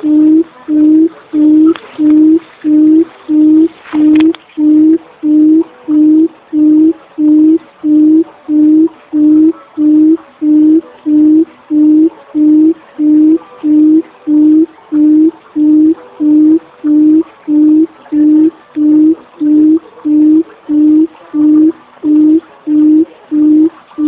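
Barred buttonquail's call, as used for a hunting decoy: a long, unbroken series of short, identical low hoots, about three every two seconds.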